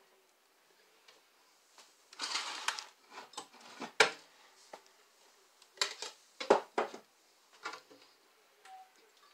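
A kitchen cupboard opened and dishes rummaged through while a measuring cup is fetched: a rattling clatter about two seconds in, a sharp knock about four seconds in as the loudest sound, then a run of clinks and knocks.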